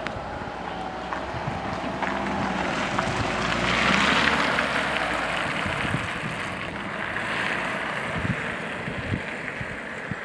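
A small car passes close by. Its tyre and engine noise swells to a peak about four seconds in, then fades as it drives away, over a steady rumble of wind on the microphone.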